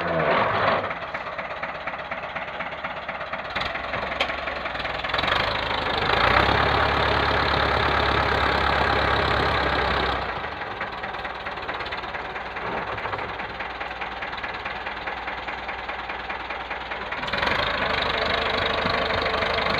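Ford farm tractor's engine running under load while it pulls a loaded trailer over soft ground on a slope. Its note gets louder and steadier for a few seconds around a third of the way in, drops back, and then rises again near the end.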